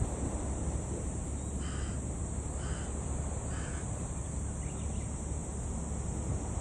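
A crow cawing three times, about a second apart, starting near two seconds in, over steady low wind noise.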